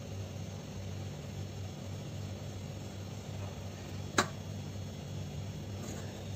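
A single sharp click about four seconds in: a plastic lid knocking against a steel plate as a cut dough disc is set down. Under it runs a steady low hum.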